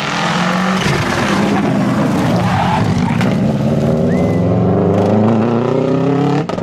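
Subaru Impreza GT Turbo rally car's turbocharged flat-four engine at stage pace as the car passes close by. The engine note drops about a second in as the driver lifts, then climbs steadily as the car accelerates away. The sound breaks off sharply near the end.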